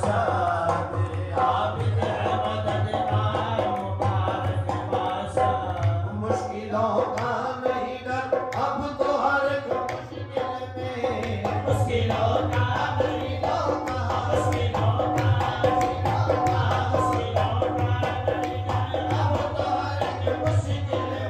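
Qawwali music: a harmonium playing a sustained melody over steady hand-drum beats, with a singing voice.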